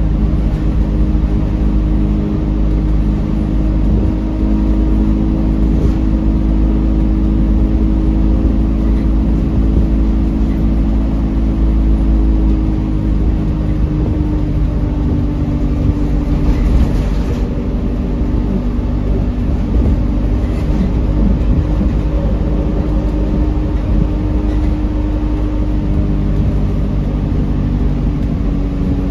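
Alexander Dennis Dart SLF bus engine with its Allison 2100 five-speed automatic gearbox, heard from inside the passenger saloon, running steadily while the bus is under way. The engine note drops slightly about halfway through, and a brief hiss follows soon after.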